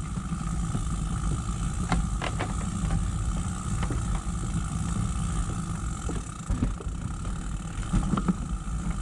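A loaded touring bicycle ridden along a trail: a steady low rumble of riding noise, with scattered clicks and rattles, a cluster of them about two seconds in and another near the end.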